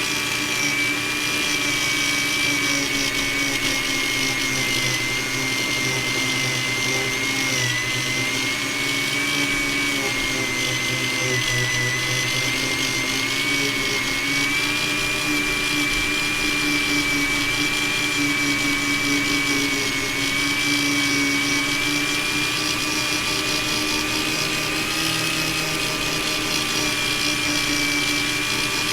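Dremel rotary tool running steadily with a high whine that wavers slightly in pitch, polishing the plastic of an AirPods Pro case.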